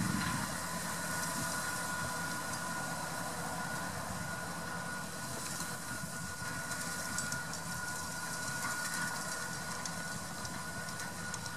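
McCormick MC105 tractor's diesel engine running steadily as it works down the hayfield pulling a PTO-driven hay tedder, with a thin, steady high whine over the engine note.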